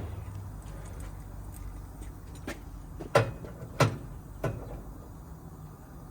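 Four sharp knocks or clanks spread across about two seconds starting around the middle, the second and third the loudest, over a low steady hum.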